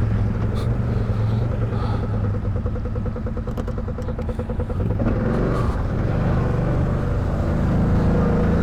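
ATV engine running while riding along a trail. About five seconds in, the engine note shifts and grows louder, as the throttle opens.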